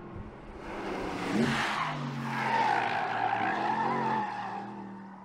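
Porsche Panamera driven hard on a race track: the engine revs up about a second in, then the tyres squeal through a corner for about two seconds before the sound fades.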